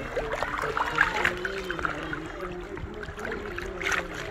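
Fast river current rushing and lapping around a kayak drifting through a riffle, with scattered sharp splashes, the strongest about a second in and again near the end.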